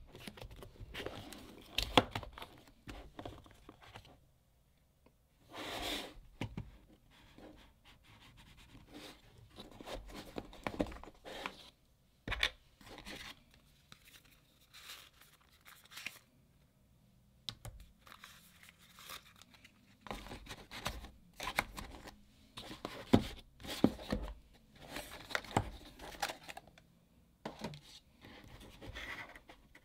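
Cardboard box and packaging being handled during an unboxing: the box opened, paper and plastic wrapping pulled off and rustled, with short light clicks and knocks as small items are set down on a desk. The handling comes and goes, with quieter gaps in between.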